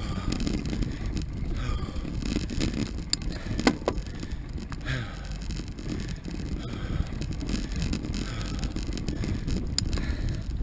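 Mountain bike rolling down a dirt singletrack: a steady low rumble of tyres on the trail and rattling of the bike, with a few sharp knocks, the loudest a little over three seconds in and another near the end.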